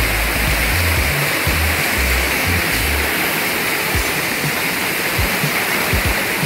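Rain-swollen mountain creek rushing over rock slabs as small falls: a loud, steady hiss of fast white water, running high after heavy overnight rain.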